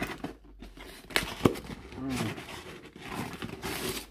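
Cardboard box being handled and its flaps opened: two sharp taps a little past a second in, then a scraping, rustling rub of cardboard near the end.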